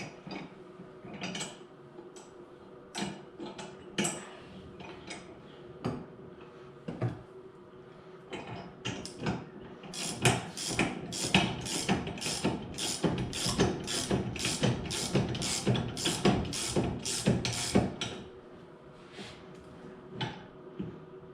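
Ratchet wrench tightening bolts. A few scattered clicks come first, then from about halfway through a steady run of quick clicking, about three a second, which stops a few seconds before the end.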